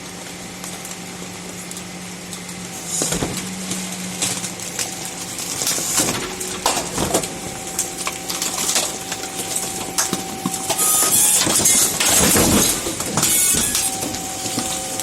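Refuse collection: a waste truck's engine hums steadily under clattering, knocking and crunching as rubbish and bins are handled, with louder rushing noise about two thirds of the way through.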